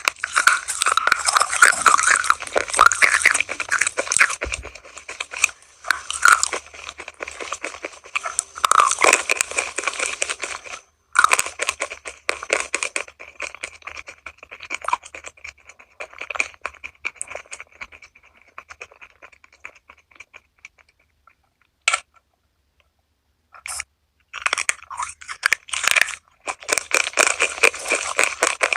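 Close-up crunchy chewing of crispy food, loud crackling bites and chews with a quieter stretch in the middle and a short pause about three-quarters of the way through.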